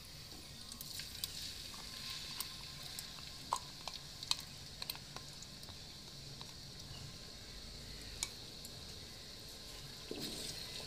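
Ground spice paste sizzling in hot mustard oil in a clay handi, a steady hiss with scattered sharp ticks and pops.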